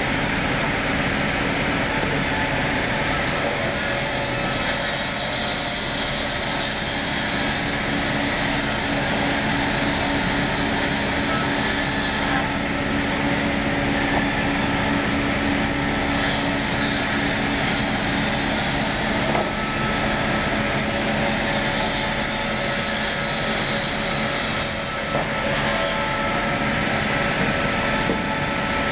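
Carriage-fed circular sawing machine running steadily, its spinning saw blade and drive giving a continuous mechanical noise with several steady hums and whines.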